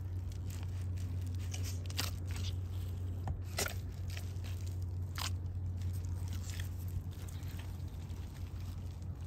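Footsteps of thick-soled white sneakers in mud: crunching, scraping steps with several sharper crackles, over a steady low hum.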